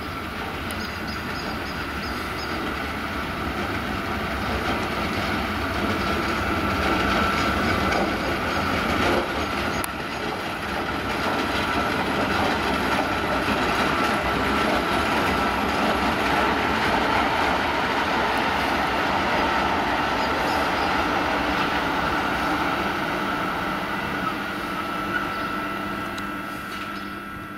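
An electric locomotive hauling a freight train of open wagons passing close by: a continuous rumble and rattle of wheels on rail that builds over the first few seconds, holds as the wagons roll past, and fades near the end, with a steady high ring running through it.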